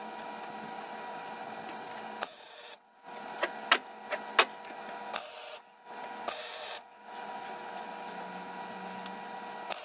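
Steady mechanical hum with a faint fixed whine, broken by several brief dropouts and short bursts of hiss. Around the middle come a few sharp metal taps as the bent aluminum roll hoop is handled against the steel tube frame.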